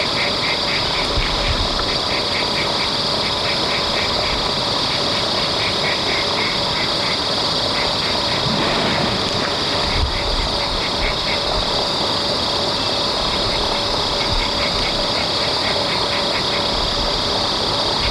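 Outdoor ambience: a steady high-pitched buzz with repeated short trains of rapid chirping calls every second or so, over a low rumble.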